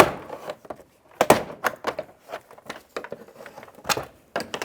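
Plastic push-pin clips on a Chevy Trailblazer's interior door panel popping loose as the panel is pried off the door: a string of sharp pops and knocks, the loudest at the very start and a cluster a little over a second in.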